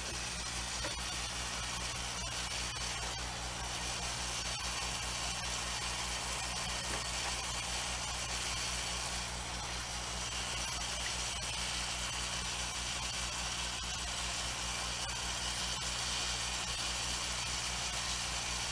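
Steady hum with a constant hiss from the running oven while its door stands open and the chicken turns on the rotisserie.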